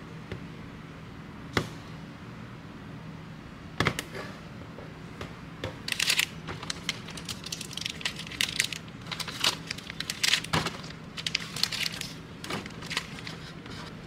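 Plastic food packaging handled: a clear plastic clamshell box clicking as it is opened, then plastic wrappers crinkling in bursts.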